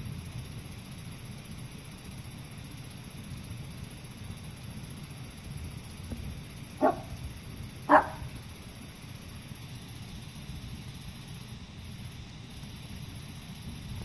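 A dog barks twice, short single barks about a second apart, the second one louder, over a steady low background hum.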